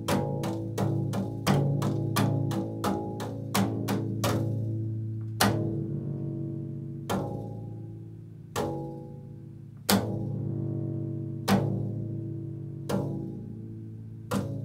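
Upright double bass played pizzicato: quick plucked notes for the first four seconds or so, then single notes about every second and a half, each left ringing and dying away over a low sustained pitch.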